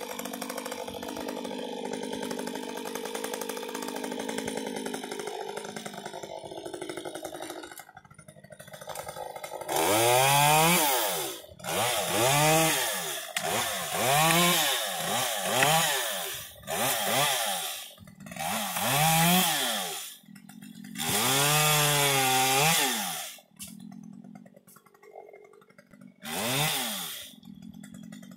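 Chainsaw running steadily, then from about a third of the way in revved to full throttle again and again in bursts of a second or two, each rising and falling in pitch, as it cuts limbs from a tall pine.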